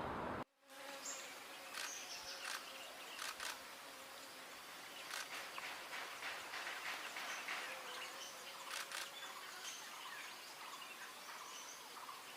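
Baby birds begging with many short, high-pitched chirps in quick, irregular succession.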